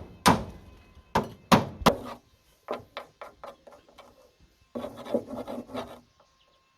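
Sharp blows on wood: four loud strikes in the first two seconds, then a run of lighter taps, then a rough scraping rub about five seconds in.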